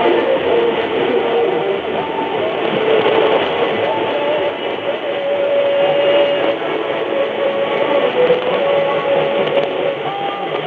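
Distant medium-wave AM station on 1640 kHz received on an Eton E1 receiver: faint music under steady static and hiss. The audio stops above about 4 kHz, set by the receiver's 4 kHz filter.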